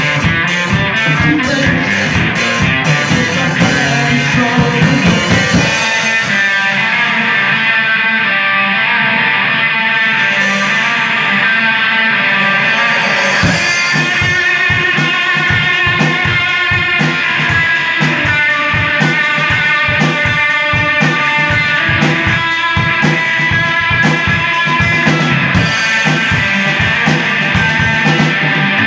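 Live rock band playing an instrumental passage: electric guitar over bass and drum kit. About six seconds in the drums and bass drop out, leaving the guitar, and they come back in about halfway through.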